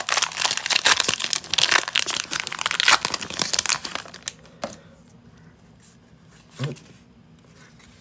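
Foil wrapper of a Pokémon Vivid Voltage booster pack crinkling and tearing as it is ripped open and the cards are pulled out, for about four and a half seconds. Then it drops to quiet card handling.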